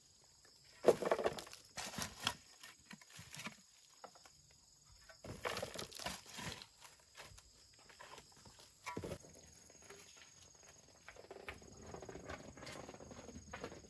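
Shovel scraping and digging into clay soil, with knocks as clods of earth drop into a wheelbarrow, several separate strikes. From about eleven seconds in, a steady rumbling as the loaded wheelbarrow is pushed along.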